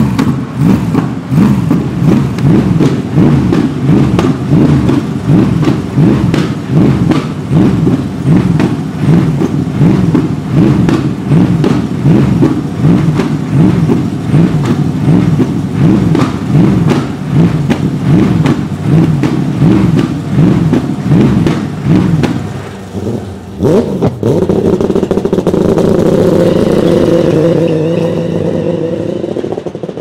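Race car engine revved in neutral, the throttle blipped over and over in a quick, regular rhythm, each rev rising and falling in pitch. About 23 seconds in the revving stops and a steadier held note takes over, fading near the end.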